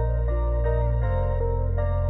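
Background music: calm new-age style keyboard notes over a held bass, with the bass note changing about a second in.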